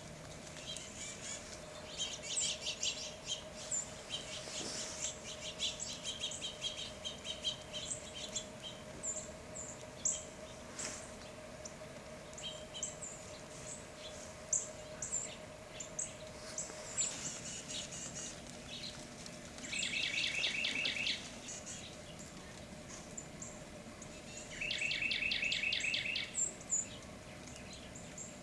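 Small songbirds calling: many high, short chips, and two rapid, even trills of about a second and a half each, one about two-thirds of the way in and one near the end.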